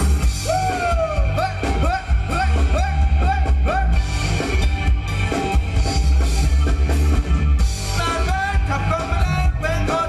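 Live band playing loud, upbeat ramwong dance music with a heavy bass beat. In the first few seconds a lead line plays a run of short swooping notes.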